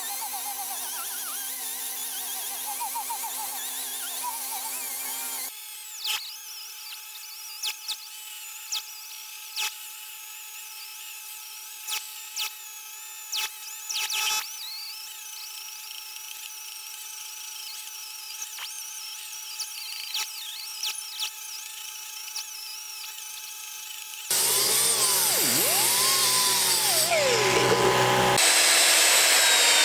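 Small die grinder with a wire wheel spinning at high speed and scrubbing a cast-iron hibachi bowl: a high whine with scratching and sharp ticks as the wheel hits the metal. The sound jumps abruptly a few times, getting louder near the end.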